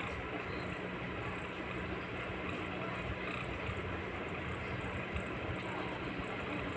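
Steady background noise: a low hum under a continuous high-pitched hiss, with no distinct sound standing out.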